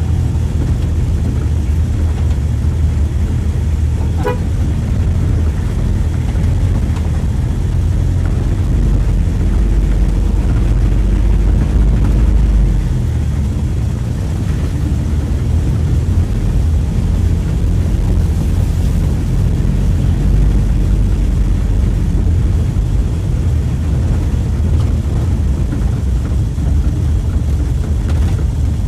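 Mitsubishi L300 pickup's engine running steadily as it is driven, heard from inside the cab, with a short horn toot about four seconds in.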